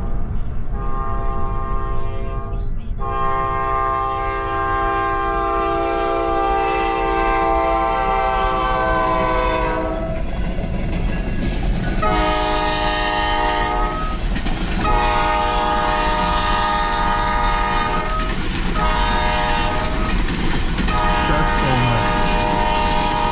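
Locomotive multi-chime air horn sounding a string of blasts, one long blast of about seven seconds followed by several shorter ones, over the steady rumble of a passing train at a grade crossing.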